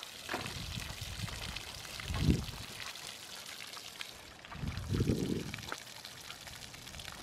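Water pouring in a steady trickle onto the grass from a plastic water jug holed by a 9mm bullet. Two short low rumbles come about two and five seconds in.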